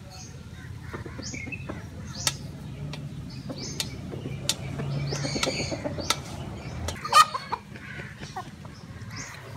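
Domestic hens clucking, with several sharp clicks among the calls; the loudest click comes about seven seconds in.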